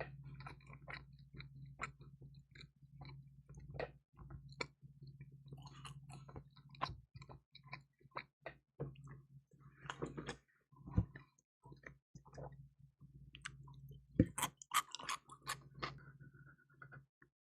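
Close-miked chewing of crispy, cheesy pizza, with crunchy bites and wet mouth clicks at irregular intervals, the loudest a few crunches about eleven and fourteen seconds in. A steady low hum runs underneath and stops just before the end.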